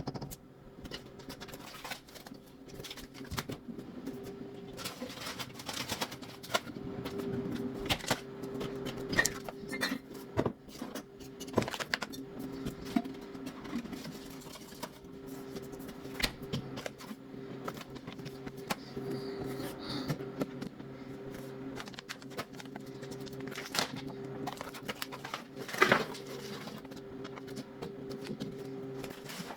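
Scattered clicks, taps and rustles of things being handled at close range, with a sharper knock about 26 seconds in, over a steady low electrical hum.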